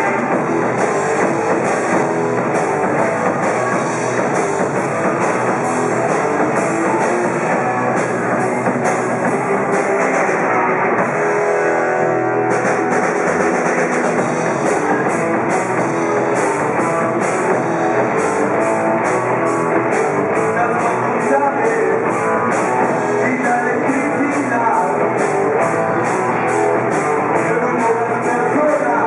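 Live rock band playing: electric guitars, bass and drum kit, with steady cymbal strokes. The drums drop out briefly about eleven seconds in, then the full band comes back.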